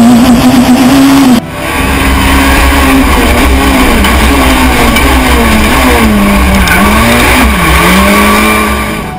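Peugeot 207 S2000 rally car's engine running hard at high revs, heard from onboard. The sound cuts off abruptly about a second and a half in, then resumes, and near the end the revs drop and climb back twice.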